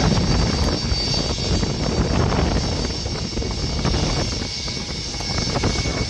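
Y-20 transport aircraft's four D-30 turbofan engines running as it rolls along the runway: a loud, steady jet rumble with a high whine over it.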